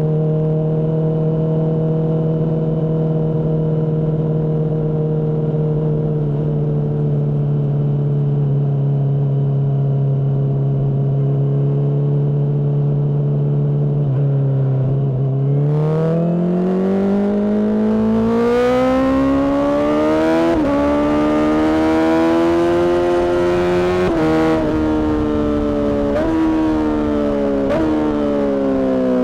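Honda CBR600RR inline-four through a Mivv exhaust, holding a steady note for about fifteen seconds. It then climbs in pitch under acceleration, with a few brief breaks, and eases back down near the end.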